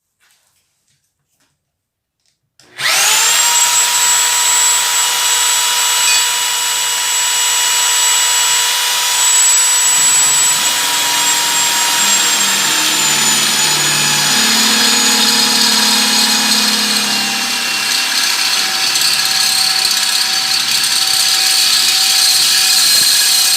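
Electric drill mounted in a homemade bench drill stand, starting about two and a half seconds in with a rising whine and then running steadily at speed. Its whine drops slightly in pitch in the second half.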